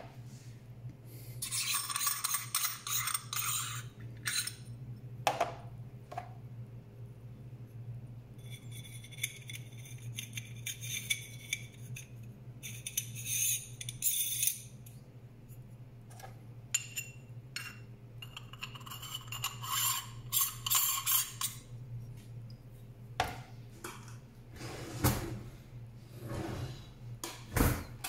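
Metal parts of a 1Zpresso K-Plus hand coffee grinder scraping and rubbing against each other as the catch cup is handled and twisted against the grinder body, in four stretches of one to three seconds each. A few knocks near the end as the parts are set down.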